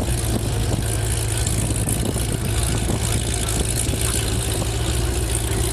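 Car engines idling steadily at low pitch, with no revving.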